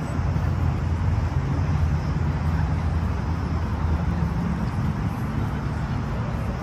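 Steady low rumble of road traffic, with faint engine hum in it.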